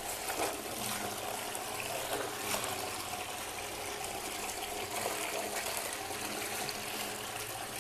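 Flush water running steadily into a wall-hung ceramic toilet bowl, a continuous trickling, with a few small splashes as a hand dips into the bowl.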